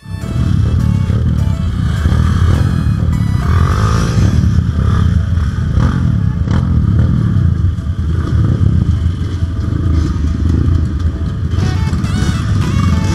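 Dirt bike engine running as it is ridden, heard from on the bike itself under a heavy low rumble, with the revs rising and falling about four seconds in.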